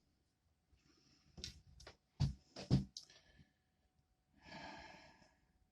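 A few soft clicks and knocks of small objects being handled, then a short exhaled breath about five seconds in.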